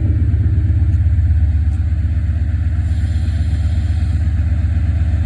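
Class 68 diesel locomotive's Caterpillar V16 engine running steadily just after being started, a loud, low, pulsing rumble.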